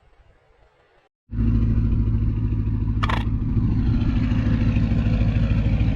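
A motor engine running steadily, starting abruptly about a second in, with a brief knock or clatter about three seconds in.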